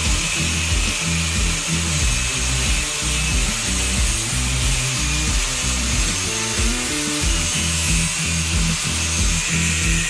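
Angle grinder with a thin cut-off disc cutting through square steel tubing, a steady grinding noise, mixed with background music that has a steady beat and bass line.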